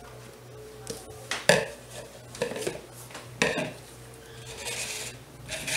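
Plastic mixing bowl and plastic measuring jugs knocking on a countertop: several sharp knocks in the first half, then a brief scrape near the end as the bowl is slid across the counter.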